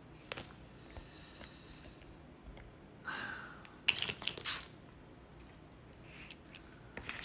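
Scattered light clicks and clinks of takeout food containers and disposable wooden chopsticks being handled at a table, with a cluster of sharper knocks about four seconds in.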